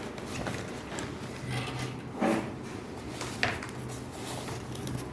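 Soft knocks and rustles of a keyboard and its packaging being handled, over a faint steady hum.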